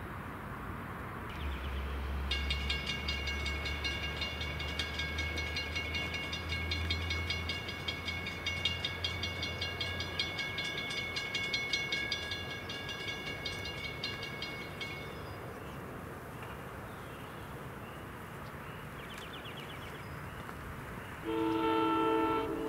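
A warning bell rings rapidly for about thirteen seconds, typical of a grade-crossing bell activating for an approaching train. Near the end the oncoming NJ Transit Arrow III electric multiple unit sounds its multi-tone horn, the loudest sound here.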